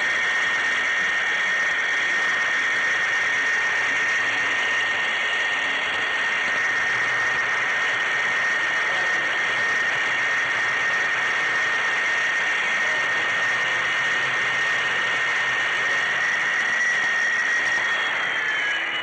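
HO-scale model train's small electric motor and gearing, heard up close, whining steadily while its wheels run along the rails. The whine dips slightly in pitch near the end.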